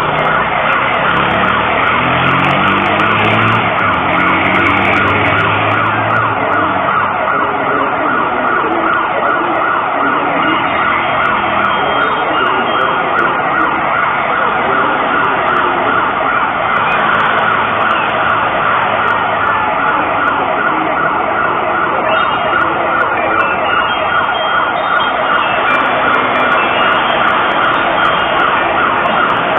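Mexico City's public seismic alert (SASMEX) siren sounding from outdoor loudspeakers: a loud, continuous wail of quickly repeating rising tones, with several sirens or echoes overlapping. It warns of an incoming earthquake.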